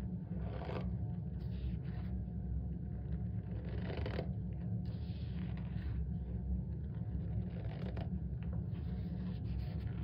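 Hands squeezing and crumbling dry cornstarch powder, giving soft squeaky crunches in irregular bursts, the strongest about four seconds in. A steady low rumble runs underneath.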